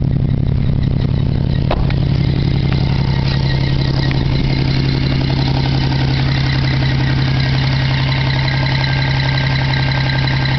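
Geo Metro engine idling steadily, with a couple of light clicks in the first few seconds.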